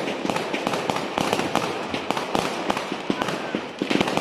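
Fireworks going off: a dense, irregular crackle of many sharp pops and bangs, with a short lull near the end followed by a louder cluster.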